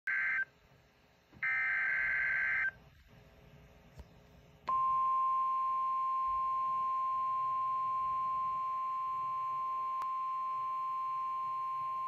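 NOAA Weather Radio alert on a Midland S.A.M.E. weather alert radio's speaker. It opens with two short bursts of buzzy digital header data tones. About four and a half seconds in, the single steady high-pitched weather alert tone starts and holds.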